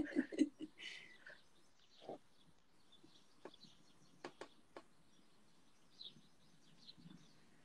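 Faint, scattered bird chirps over a quiet background, with a few soft ticks now and then.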